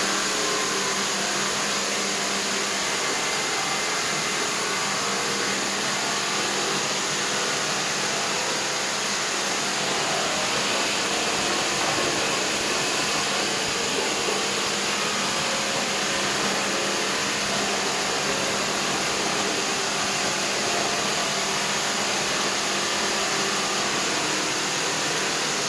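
Garlic colour sorter line running: a steady, loud, even machine noise like rushing air, with a low hum underneath.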